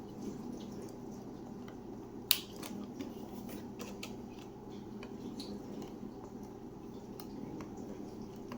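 Small plastic clicks and taps as a stubborn wire connector is worked at by hand, with one sharp click a little over two seconds in. Under it a dishwasher runs with a steady low hum.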